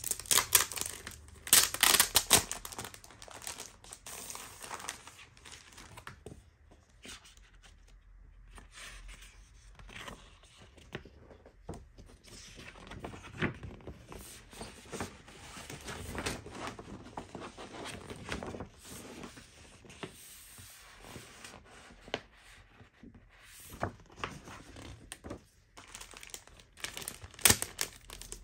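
Clear plastic sleeve crinkling as it is handled, loudest in the first couple of seconds and again near the end, with quieter rustling of a paper poster being unfolded and handled in between.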